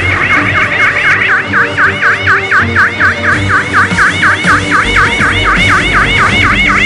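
Police car siren in a rapid yelp, its pitch sweeping up and down about six times a second, over background music with a steady bass.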